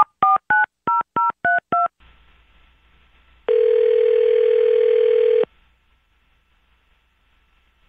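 A telephone number being dialled: a quick run of about seven touch-tone keypad beeps, then a faint line hiss. Then one ringback tone of about two seconds, the ringing signal that the called phone is ringing.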